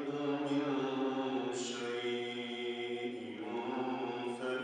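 A man's solo voice chanting a melodic Arabic religious recitation into a microphone, holding long notes that slide in pitch between short syllables.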